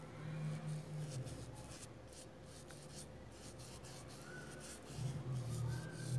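Flat paintbrush stroking and dabbing paint onto a rubber mat: repeated soft, scratchy brushing strokes at an uneven pace.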